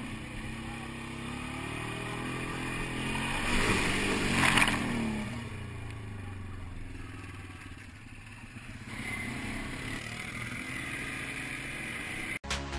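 ATV engine running and revving, its pitch rising and falling, with a louder rushing swell about four seconds in. The sound cuts off abruptly near the end.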